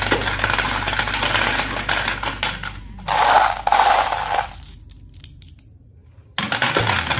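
Glass marbles clattering as they are dropped into the plastic drum of a Bruder Scania toy cement mixer truck, then a hand rattling and scooping marbles in a plastic basin. Background music comes in suddenly near the end.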